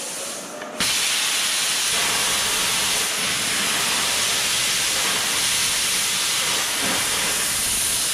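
Thermal Dynamics Cutmaster 52 hand-held plasma cutter hissing as it cuts through a hardened steel plate. The hiss is softer at first, then about a second in it grows louder and holds steady through the cut.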